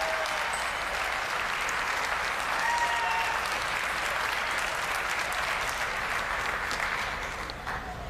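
Arena audience applauding steadily, with a brief call or whoop or two over the clapping. The applause dies down near the end.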